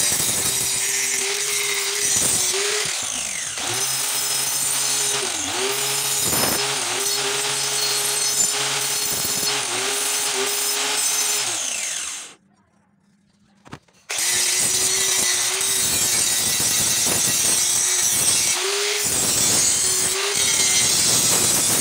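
Handheld angle grinder with an abrasive disc grinding rust off an old steel bill hook blade: a steady motor whine that dips in pitch now and then, over harsh grinding noise. The sound cuts out for about two seconds just past halfway, then the grinding starts again.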